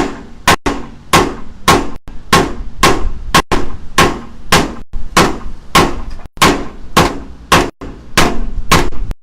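Steady series of about sixteen hammer blows, a little under two a second, each with a short ring, driving a replacement window into an opening where it fits too tightly.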